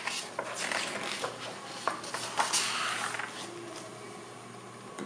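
A book's pages being turned and the book closed by hand: paper rustling with a few light taps and ticks, mostly in the first three seconds, then a faint steady hum.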